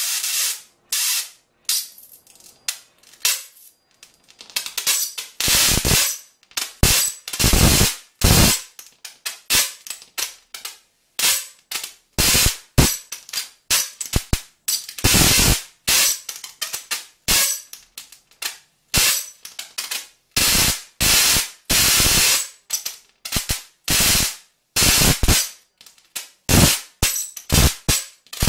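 High-voltage arcs from a homemade diode-capacitor voltage multiplier running at over 100 kV and 300 W, striking to an electrode on an insulating pole: loud, irregular discharges, some sharp snaps a fraction of a second long, others lasting up to about a second, with short gaps between them.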